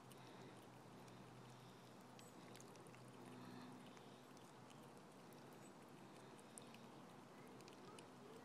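Near silence: faint steady background hum with scattered faint clicks.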